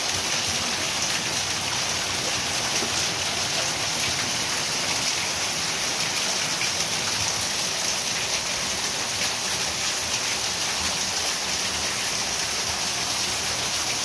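Heavy rain falling steadily on leaves and a clay-tile roof: a dense, even hiss of rain.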